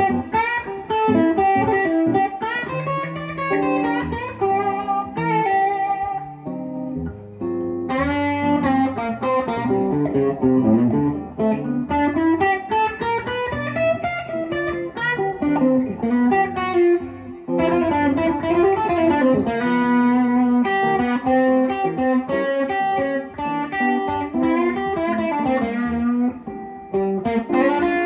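1959 Epiphone Coronet electric guitar with a single P-90 pickup, played clean through a Fender Deluxe Reverb amp. It plays a continuous melodic passage of picked single notes mixed with chords, with brief pauses about seven and seventeen seconds in.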